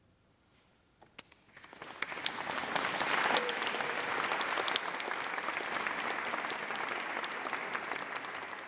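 Audience applause that starts after about a second of near silence, swells quickly into dense clapping and holds steady.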